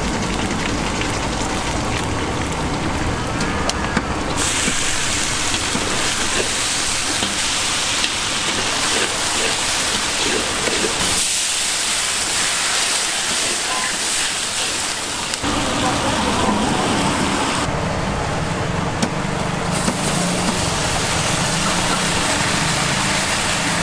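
Hot oil and paste sizzling in a large wok, stirred with a metal spatula. Pork is tipped in near the end. A low rumble runs underneath and drops out for a few seconds in the middle.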